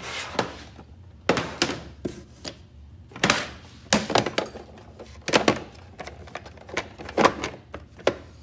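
Screwdriver bits and bit-set cases being handled in a toolbox drawer: an uneven string of sharp clicks and clacks.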